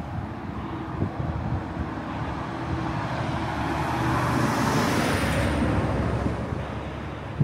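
A motor vehicle passes close by. Its sound swells to a peak a little past the middle and fades, with a faint high whine that drops in pitch as it goes past.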